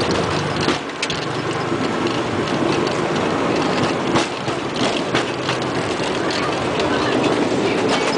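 Boeing 757 rolling out on the runway after touchdown, heard inside the cockpit: a steady rumble of engines, airflow and tyres, with irregular short knocks as the wheels roll over the runway surface.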